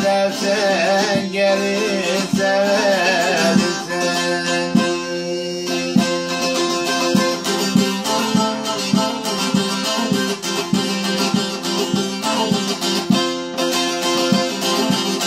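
Bağlama (long-necked Turkish saz) playing an instrumental interlude of a folk tune, rapidly strummed over a steady drone of open strings. A sung voice glides over it for the first few seconds, then the saz plays alone.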